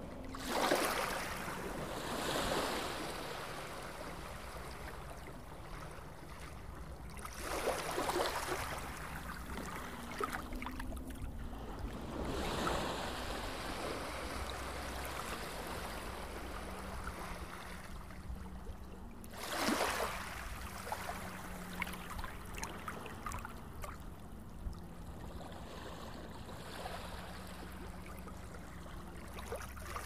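Small sea waves washing up onto a sandy shore, the wash swelling and falling back every few seconds, over a steady low rumble.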